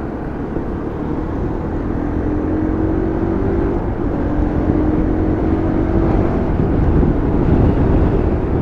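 Motorcycle engine running while being ridden, under a heavy low rumble; its note rises slowly and gets louder as it picks up speed.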